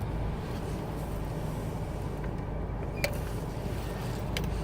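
Steady low rumble of a car heard from inside the cabin, with a sharp click about three seconds in and another near the end.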